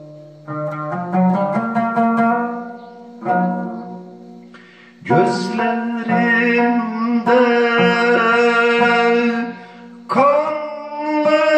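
A man singing with long, wavering held notes while accompanying himself on an oud. A short phrase of plucked oud notes comes first, and the voice enters about five seconds in, pausing briefly near the end.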